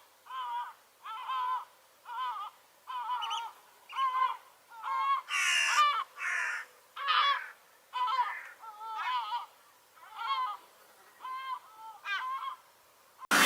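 Gull calling over and over, a wavering pitched note roughly every two-thirds of a second, with two harsh, noisy bursts about halfway through. Loud electronic music cuts in abruptly at the very end.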